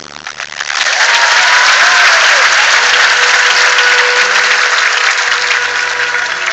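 Audience applauding, the clapping swelling in about a second in and easing near the end.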